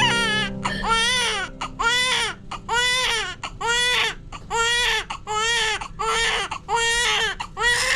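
Newborn baby crying in short, even wails about once a second, each rising then falling in pitch. It is a strong, vigorous cry, the sign of a healthy newborn, not a stressed one.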